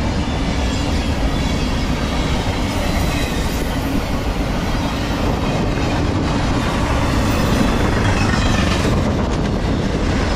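Empty intermodal well cars of a freight train rolling past close by: a steady, loud rumble of steel wheels on the rails.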